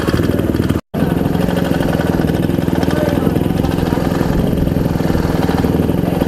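Honda CRF150R dirt bike's single-cylinder four-stroke engine running at steady revs, heard from the rider's helmet. The sound drops out for an instant just under a second in.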